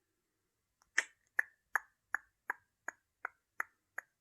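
A steady series of sharp clicks, about three a second, starting about a second in, keeping a tick-tock rhythm like a clock.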